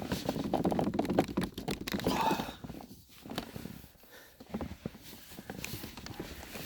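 A 2009 Hyundai Genesis shift knob and lever clicking and knocking in quick, uneven strokes as the knob is yanked hard straight up. The noise is busiest in the first two and a half seconds, then thins to scattered knocks. The knob is held on tightly and needs a great deal of force to pull free.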